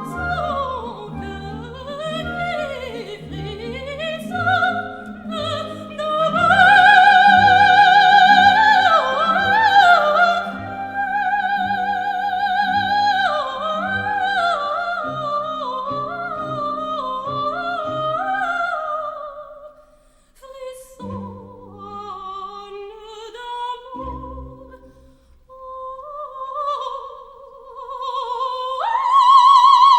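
Operatic soprano singing with orchestral accompaniment: high lines with wide vibrato and quick running passages, then a leap up to a loud, held high note near the end.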